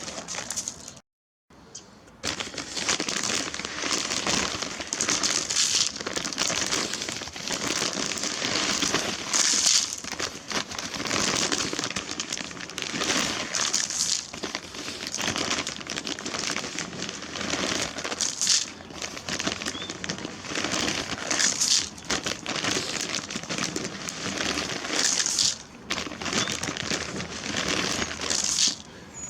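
Plastic bag of bird feed crinkling and rustling steadily as it is handled, with a short break to silence about a second in.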